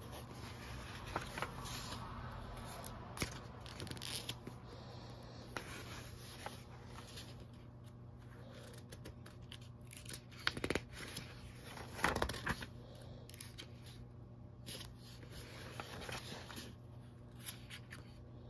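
Pages of a large paperback coloring book being turned by hand one after another: repeated short papery rustles and swishes, loudest about eleven and twelve seconds in, over a faint steady low hum.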